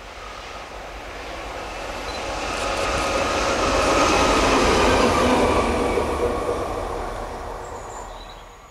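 A train led by a Fret SNCF locomotive passing close by on the rails. The noise swells as it approaches, peaks about halfway through, and fades as it goes on.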